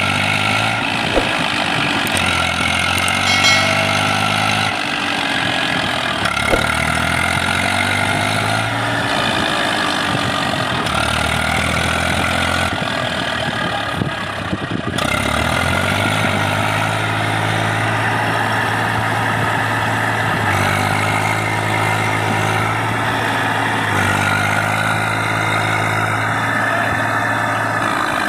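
Eicher 480 tractor's diesel engine labouring under heavy load while the tractor is stuck in deep mud. The engine speed rises and falls repeatedly, then holds steady for several seconds about halfway through before varying again.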